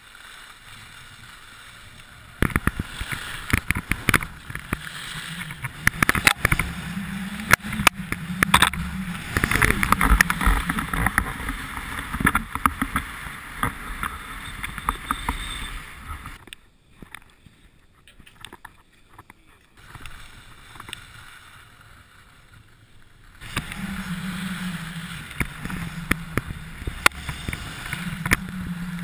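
Skis hissing and scraping over snow, with wind buffeting the microphone of a pole-held action camera and frequent knocks and clicks from handling. It drops to a much quieter rush for several seconds in the middle before picking up again.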